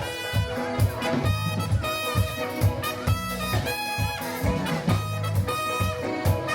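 Big-band swing music with brass: trumpets and saxophones over a steady walking beat.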